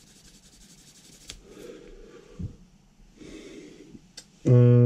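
Soft sandpaper strokes on a small plastic model-kit part, with a couple of light clicks. About four and a half seconds in, a smartphone lying on the desk starts buzzing loudly and steadily as a message notification comes in.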